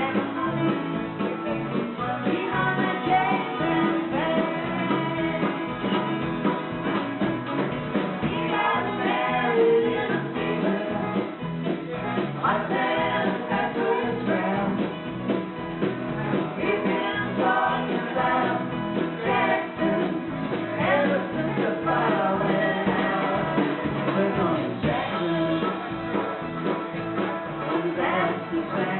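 A live band playing a song, with several voices singing over an acoustic guitar and a steady beat.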